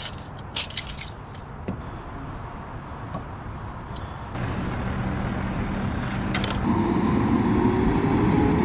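A motor vehicle's engine running close by: a steady hum that comes in about halfway through and grows louder near the end. A few light clicks sound in the first two seconds.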